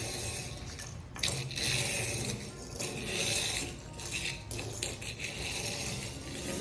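Small die-cast metal toy train being pushed along a hard surface: a rolling rattle with clinks and a few sharp clicks.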